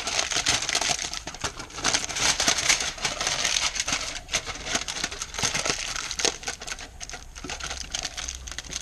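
Aluminium foil crinkling and crackling as it is pressed and folded tight over the open end of a stainless exhaust pipe, sealing the pipe for an argon purge. The crackling is busy at first and thins out toward the end.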